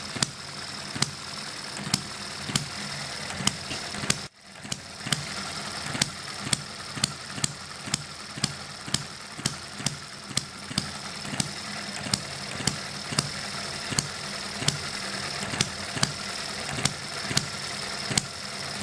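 M91 vertical single-cylinder four-stroke hit-and-miss model engine running fully warmed up, with the head hot. Sharp pops come about twice a second over the steady clatter of the running gear, with a brief break about four seconds in.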